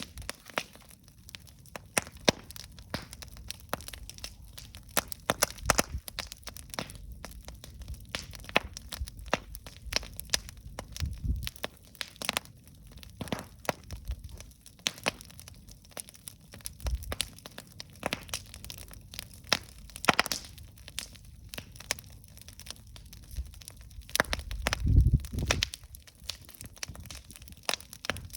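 Wood fire crackling and popping, with frequent irregular sharp snaps over a low rumble and a louder low whoosh about 25 seconds in.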